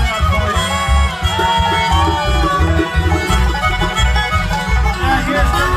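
Bluegrass band playing an instrumental break live through a PA: fiddle and banjo over guitar, with a steady low beat about twice a second.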